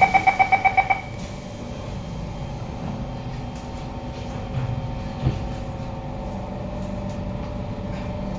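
Door-closing warning beeps on a Siemens C651 MRT train stop about a second in. The train then pulls away with a steady rumble of wheels and running gear and one sharp knock about five seconds in. The rumble comes from car 2234's wheels, which are very rough; the uploader suspects wheel flats but is not sure.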